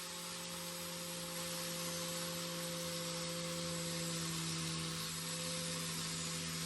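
A small motor running with a steady hum over a hiss, stopping right at the end.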